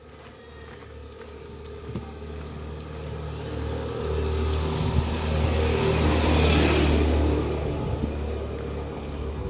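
A motor vehicle driving past on the street: its engine and tyre noise grow louder, peak about six to seven seconds in, then fade.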